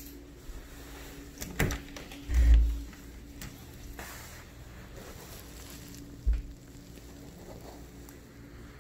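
A few sharp clicks, then a low thump about two and a half seconds in (the loudest sound) and a shorter one near six seconds, over a faint steady hum.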